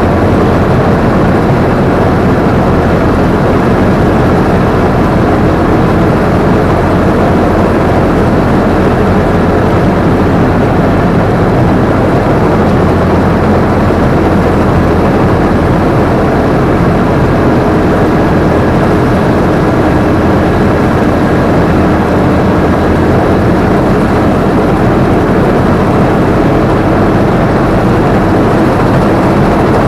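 Combine harvester running steadily under load, its engine and harvesting machinery making a loud, even drone, heard from the operator's seat.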